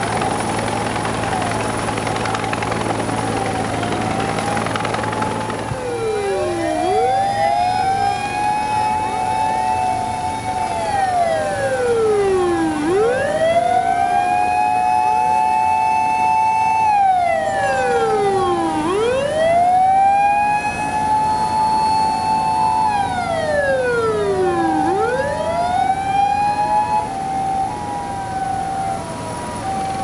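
Wailing electronic sirens of Japanese fire engines on an emergency run, several overlapping, each rising, holding and falling about every six seconds. For the first few seconds heavy engine noise is loudest under a fainter siren. Near the end a two-tone hi-lo siren joins in.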